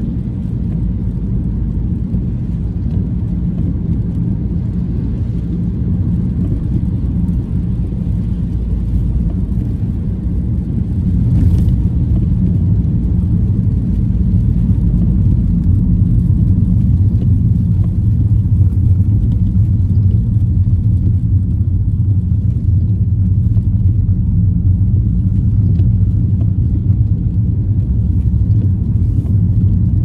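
Steady low rumble of a car driving on a wet road, the engine and tyre noise heard from inside the cabin; it grows a little louder about twelve seconds in.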